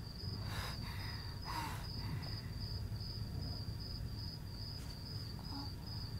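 Crickets chirping: a steady high trill in quick even pulses, over a low steady hum.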